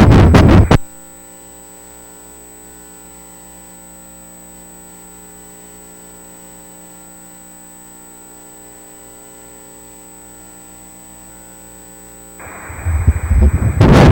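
Ultrasound machine's Doppler audio: loud rapid pulsing cuts off under a second in, leaving a steady electronic hum. Near the end a hiss rises and the pulsing starts again.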